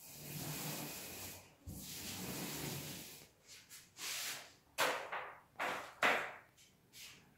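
Rubbing and swishing from wallpaper gluing: a rough scraping hiss for about three seconds, then several short, sharp swishing strokes.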